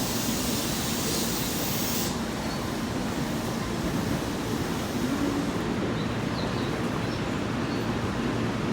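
Subway train noise in an underground station: a steady rushing hiss that cuts off suddenly about two seconds in, after which the rumble eases and a low hum remains.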